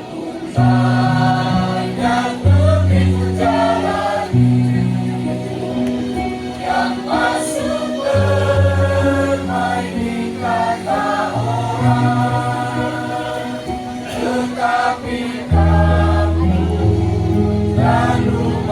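A choir singing a song in parts, over held low accompaniment notes that change in steps under the voices.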